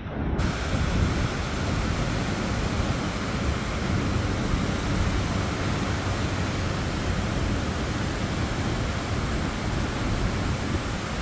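Steady rush of sea surf on a sandy beach, mixed with wind buffeting the microphone.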